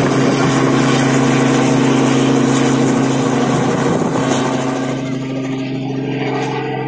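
Helicopter running with a steady drone and hiss, growing fainter from about five seconds in.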